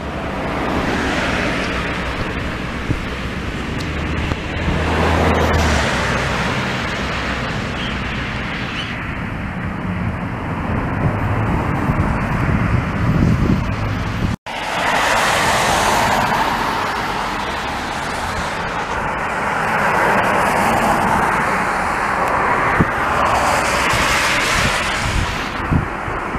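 Road traffic passing on a wet road: a steady hiss of tyres that swells and fades as vehicles go by, with a low engine rumble around five seconds in. There is a brief dropout about halfway through.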